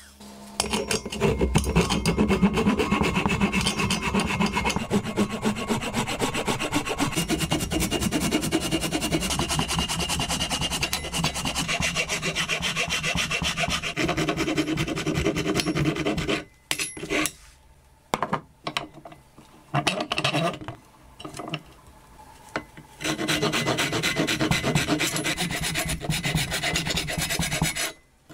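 Hand rasp scraping the wooden handle of a hand saw in quick back-and-forth strokes, shaping the wood. The rasping breaks off for several seconds past the middle, with only a few short strokes, then runs on again near the end.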